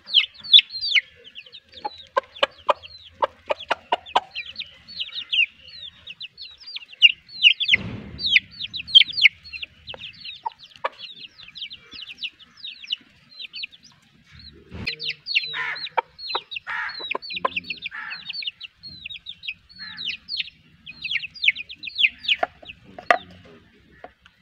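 Desi chicks peeping in a steady stream of short, high, falling peeps, with a hen's lower clucks mixed in now and then. Two dull knocks sound, about eight and fifteen seconds in.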